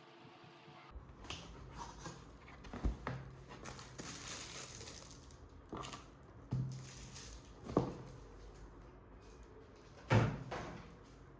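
Keyboard packaging being unwrapped and handled: crinkling and rustling, with about half a dozen light knocks.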